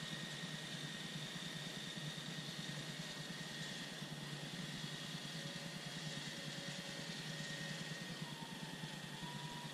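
Battery-powered caulking gun running steadily, its small motor giving a low, even whir as it pushes out a continuous bead of silicone adhesive.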